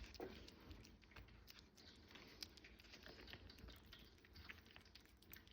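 Near silence: faint scattered small clicks and light rustles over a low room hum.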